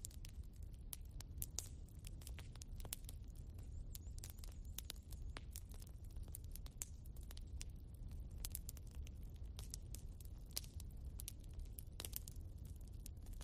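Log fire crackling in a fireplace: irregular sharp pops and snaps over a low steady rumble.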